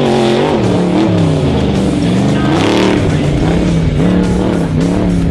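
Off-road race vehicle engine revving, its pitch repeatedly rising and falling, over background music.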